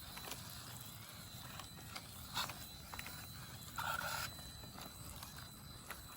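Redcat Ascent-18 1:18 brushed electric RC rock crawler working over rough ground: scattered small clicks and knocks, a sharp knock about two and a half seconds in, and a brief buzz about a second later.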